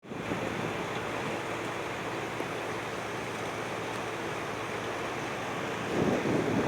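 Steady rushing air noise of air-conditioning units running, swelling louder for a moment near the end.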